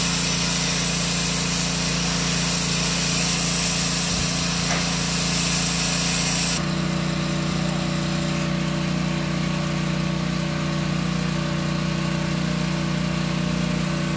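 Rug-cleaning extraction machine running steadily, pulling dog urine out of the wool rug: a constant motor hum under a loud rushing hiss. About six and a half seconds in the hiss drops away abruptly and the hum shifts pitch, then runs on steadily.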